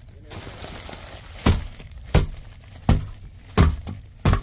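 A work boot stamping down on an old insulated flex duct and its sheet-metal collar to force it down. There is a scraping rustle for about the first second and a half, then a sharp knock about every 0.7 seconds, five in all.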